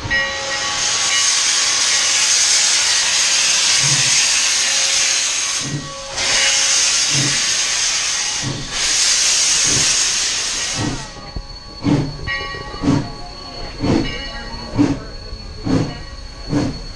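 Steam locomotive hissing loudly in three long blasts of steam from its cylinder cocks. About 11 seconds in the hiss stops and slow, even exhaust chuffs take over, about one a second, as the engine works the train along.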